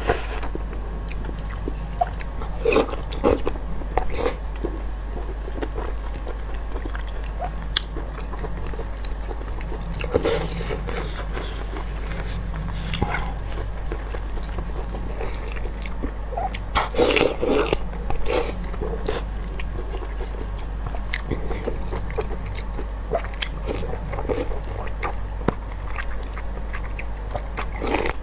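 Close-miked biting and chewing of a soft stuffed intestine sausage dipped in chili sauce, in scattered clusters of bites over a steady low hum.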